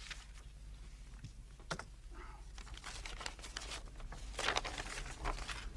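Paper crinkling and rustling in several short bursts as a registered letter's envelope is opened and the letter unfolded. The loudest rustle comes about four and a half seconds in.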